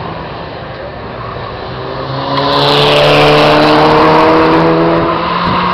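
Turbocharged Peugeot 206 race car engine running hard on a test run with a newly fitted turbo. It gets much louder about two seconds in and then holds a loud, steady note.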